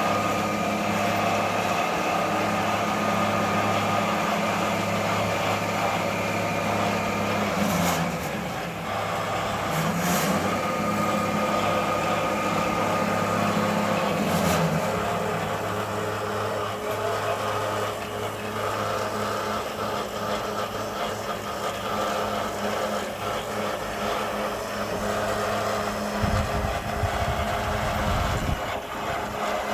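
A motor running with a steady hum that wavers in pitch about a third of the way in and fades out around halfway, with a few sharp clicks. A low rumble rises near the end.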